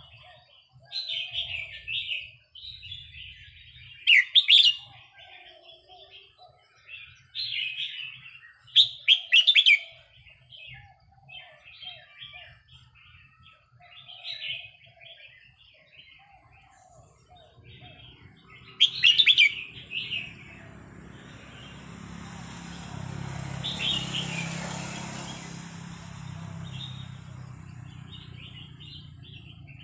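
Red-whiskered bulbul singing short, bubbly phrases every couple of seconds, with a few loud, sharp notes among them. In the second half a broad rushing noise swells and fades under the song.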